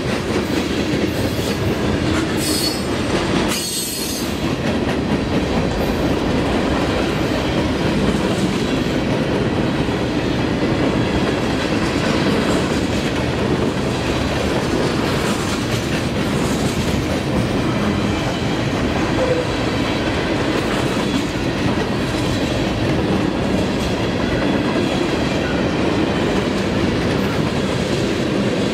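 Mixed freight train of tank cars, gondolas and double-stack container cars rolling past at close range: a steady rumble of steel wheels on rail with clatter from the cars. A brief high wheel squeal comes about three seconds in.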